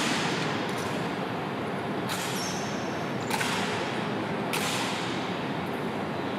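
Honor guard drill: three sharp impacts from boots and rifles, about a second and a quarter apart, each ringing out with a long echo in a large stone hall.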